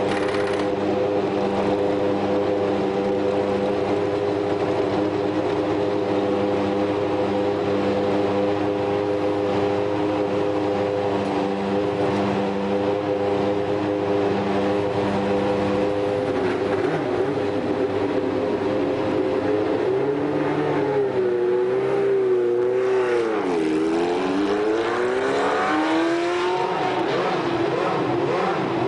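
Formula One engines running in the pit lane: a steady, even idle for the first two-thirds, then an engine's pitch dips and climbs again as it is revved between about 20 and 27 seconds in.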